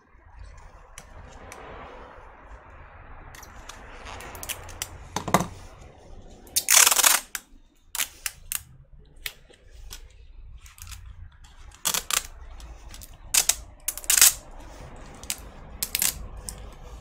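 Small clicks, taps and rustling as laptop parts are handled during repair. About seven seconds in there is one louder scrape or rip lasting about half a second.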